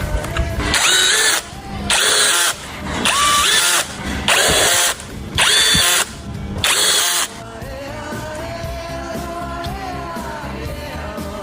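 Handheld power tool run in six short bursts over about seven seconds, its motor whine rising in pitch as each burst spins up, then stopping; background music continues after.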